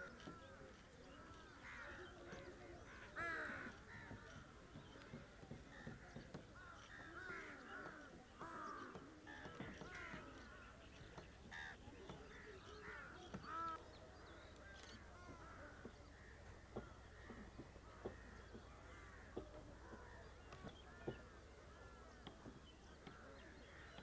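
A flock of gulls calling, faint: many short, harsh, overlapping calls with no pause, and a few soft knocks in the second half.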